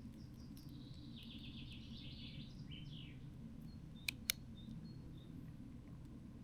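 A songbird sings one rapid, trilled phrase of quick chirps lasting about three seconds, over a steady low outdoor rumble. About four seconds in come two sharp clicks in quick succession, then a few faint high pips.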